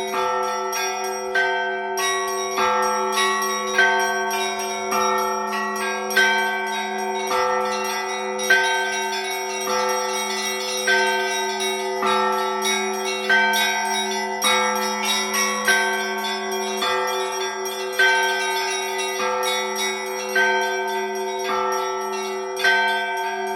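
Russian Orthodox church bells rung by a single bell ringer in a continuous peal (zvon). Small bells chime in quick patterns over the steady hum of the larger bells, with a heavier stroke about every second and a quarter.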